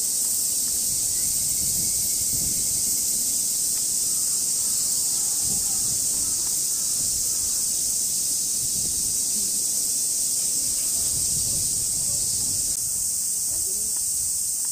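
A steady, high-pitched chorus of summer cicadas buzzing without a break.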